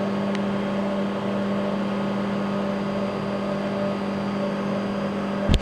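Steadytech Mini 3D printer's stepper motors homing the axes at the start of bed levelling: a steady, even-pitched motor hum, with a sharp click near the end.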